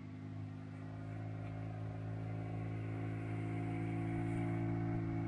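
A boat's motor running at a steady speed, holding one even drone that grows slowly louder.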